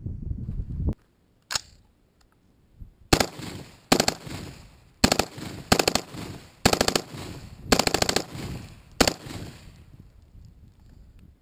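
AR-15 rifle with a VG6 Gamma 556 muzzle brake firing .223 rounds on full auto: a single shot about a second and a half in, then about six short bursts of rapid fire.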